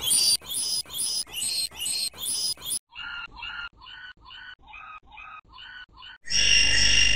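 A short chirping sound effect repeated about two to three times a second and processed with audio effects. A little before halfway it turns lower-pitched and quieter. Near the end a loud, steady, distorted tone suddenly cuts in.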